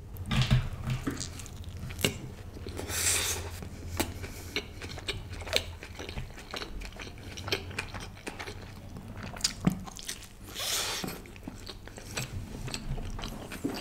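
Close-miked chewing of a mouthful of butter chicken pizza, with irregular wet clicks and smacks.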